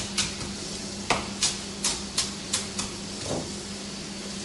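Kitchen knife chopping a chili on a cutting board: a run of short, sharp taps, about three a second.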